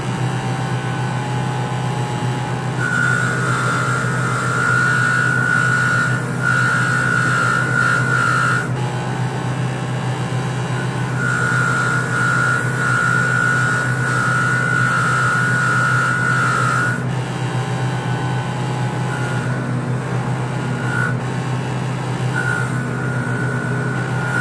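Bench grinder running with a steady hum while the carbon-caked face of a Mazda 13B rotary-engine rotor is pressed against its wire wheel, scrubbing off the carbon and polishing the metal. The wire wheel's high scraping whine comes in two long passes of several seconds each, then in a few short touches near the end.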